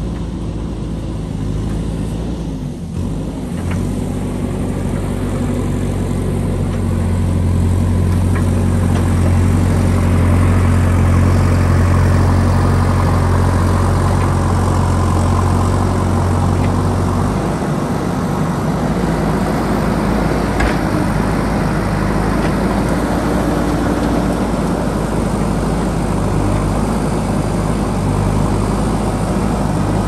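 JCB backhoe loader's diesel engine running steadily with a low hum. About halfway through the sound changes to a rougher, more even noise.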